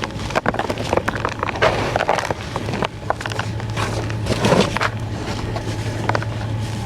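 Gritty crunching and crackling of concrete sand being crushed: a run of irregular crackles, with a louder crunch about four and a half seconds in, over a steady low hum.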